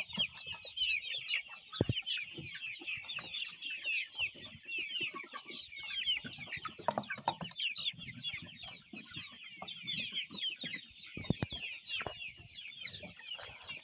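A flock of two-month-old chickens, young cockerels among them, cheeping continuously: many short, high, downward-sliding calls overlapping one another. A few sharp knocks stand out, about two seconds in and again around eleven seconds.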